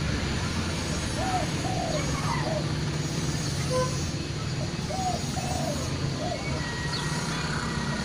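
Zebra doves (perkutut) cooing: two phrases of three short arched coos, about a second in and again about five seconds in, over a steady low engine hum.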